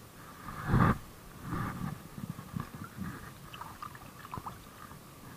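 Shimano FX1000 spinning reel being cranked to retrieve a lure, a run of small irregular clicks and rattles, after a louder handling thump about a second in.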